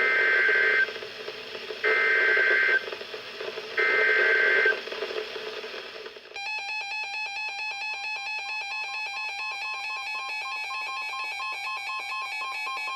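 Three bursts of EAS/SAME digital data tones from NOAA Weather Radio, about two seconds apart, each a shrill two-tone warble. From about six seconds in a weather alert radio sounds its electronic alarm, a rapid steady beeping, signalling an incoming warning.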